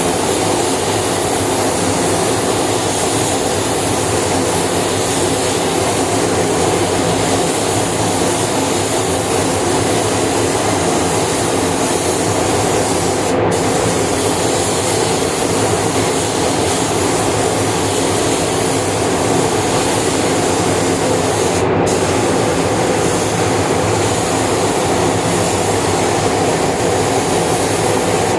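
Steady rushing air inside a car paint spray booth: the booth's fans run constantly while a compressed-air paint spray gun hisses, its high hiss cutting out for a moment twice as the trigger is released.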